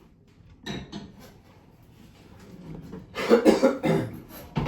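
A person coughing: two short coughs about a second in, then a louder run of rough coughs near the end.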